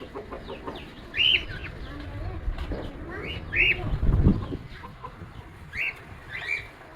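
Lovebird giving short, sharp chirps, about four over a few seconds, with a low rumble about four seconds in.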